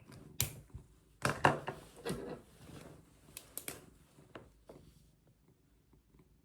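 Short clicks and rustles of small objects being handled, a cluster of them loudest about a second and a half in, then sparser clicks dying away near the end.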